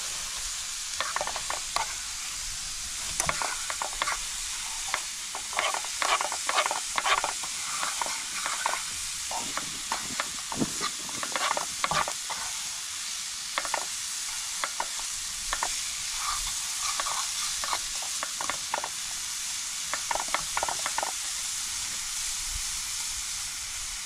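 A metal fork stirring and scraping pasta in a small camping frying pan on a portable gas stove, in irregular scrapes and clicks over a steady sizzle.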